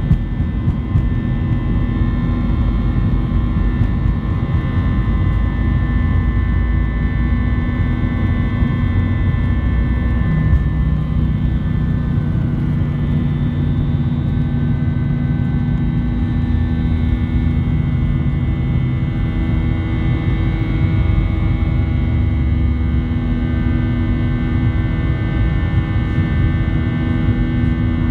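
Airbus A320's jet engines running at climb power, heard inside the cabin: a loud, steady rumble with several steady whining tones above it.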